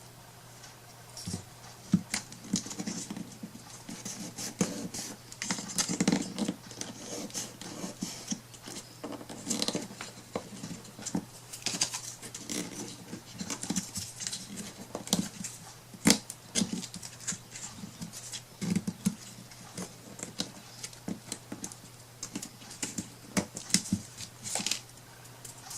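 Hands working with small craft pieces on a tabletop: irregular light taps, clicks and rustling, with a few sharper knocks, over a steady low hum.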